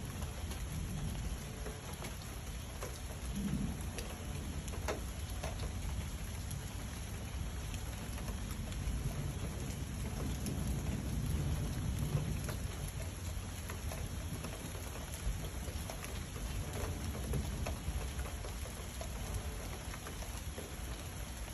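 Thunderstorm: steady rain with individual drops ticking close by, over low rolling thunder that swells and fades several times.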